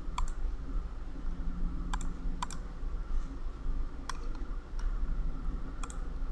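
Computer mouse clicking, about six separate sharp clicks at irregular intervals, two of them close together about two seconds in, over a steady low hum.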